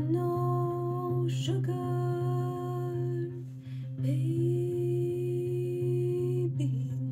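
A woman singing long, held, wordless notes in three phrases with short breaks between them, over a Stratocaster-style electric guitar.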